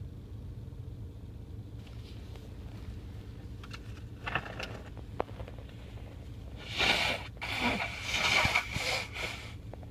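A car idling, with a short noisy burst about four seconds in and a louder stretch of noise lasting about three seconds near the end: the car's "sneeze".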